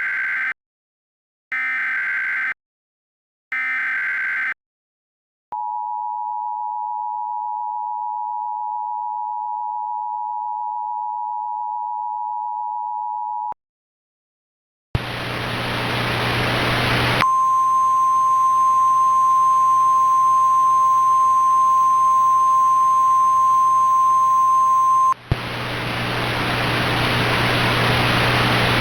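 Emergency Alert System tones: three harsh one-second SAME header data bursts, then the two-tone attention signal held steady for about eight seconds. After a short pause comes loud hissing static, with a steady single tone over it for about eight seconds in the middle.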